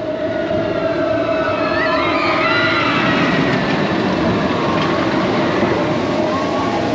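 Expedition Everest roller coaster train running along its steel track: a steady loud rumble with a held tone, and wavering higher squeals a couple of seconds in.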